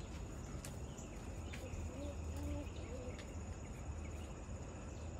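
Insects trilling, one steady high-pitched buzz that carries on unbroken, over a low outdoor rumble.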